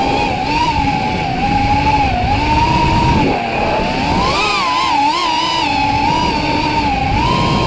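Brushless motors and propellers of an FPV racing quadcopter, a 4S Neato180 on Racerstar 2205 2600kv motors, whining as heard from the onboard camera. The pitch wavers up and down with the throttle and climbs sharply about four seconds in, over a rush of wind.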